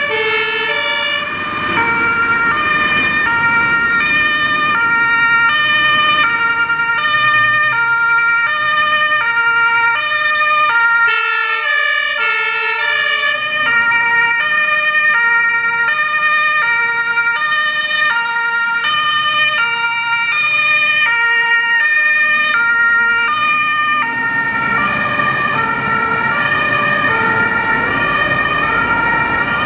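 German two-tone siren (Martinshorn) of a MAN roll-off fire truck, alternating steadily between its two tones as the truck drives past, with the truck's engine and tyres beneath. A short hiss breaks in about eleven seconds in.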